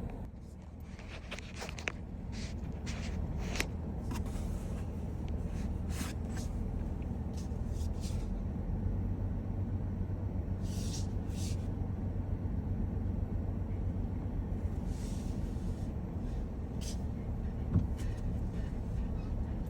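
Vehicle driving on a dirt road, heard from inside: a steady low rumble that builds over the first few seconds as it gets going, with scattered clicks and rattles and a sharper knock near the end.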